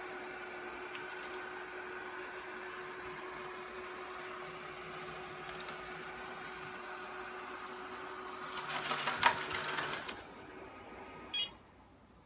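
ILIFE A4s robot vacuum running with a steady hum. About nine seconds in comes a louder stretch of clicking and rattling lasting a second or so, then a brief sharp click near the end, after which the sound cuts off.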